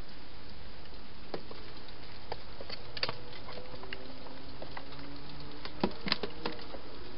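Scattered light clicks and taps from a wild hedgehog moving into a plastic feeding box, over a steady hiss; the loudest taps come in a small cluster about six seconds in.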